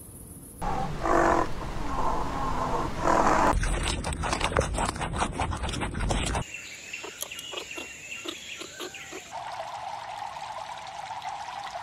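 An elephant calling in a few pitched calls, then a cut to rabbits crunching food pellets, a dense run of quick clicks. In the last few seconds there are faint chirps and ticks, then a steady hum.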